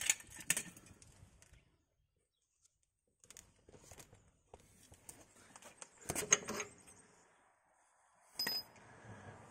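Scattered metal clinks and scrapes from the lower shock absorber mounting bolt of a Skoda Fabia's rear axle being pulled out of its bracket and handled. The loudest cluster comes about six seconds in, and a brief metallic ring comes near the end.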